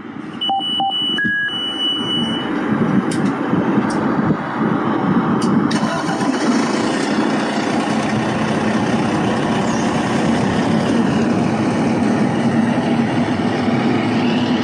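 Truck engine sound effect: a few short beeps and a held tone in the first couple of seconds as the engine starts, then the engine running steadily at idle.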